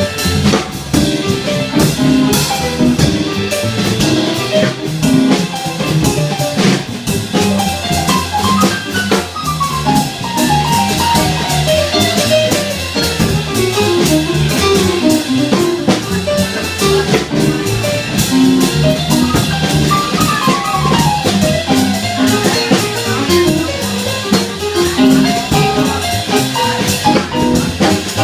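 Jazz quartet playing live, with a drum kit keeping time on cymbals and drums under quick descending melodic runs, twice.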